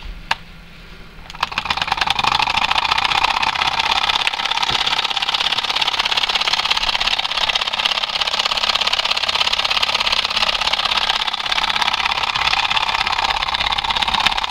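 Miniature single-cylinder vertical solenoid engine in brass: a click, then about a second and a half in it starts running fast with a steady, rapid mechanical clatter.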